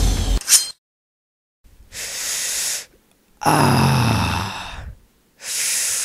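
Music cuts off just after the start, then a man breathes heavily: a hissing intake of breath, a long voiced exhale that falls in pitch, and another sharp intake.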